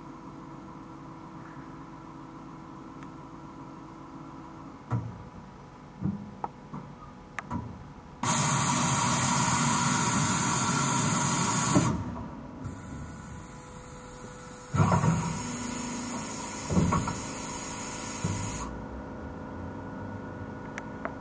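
Stama MC 230/H CNC horizontal machining centre running with a steady hum and a few clunks, then two loud bursts of hiss of about four seconds each, with more clunks during and between them.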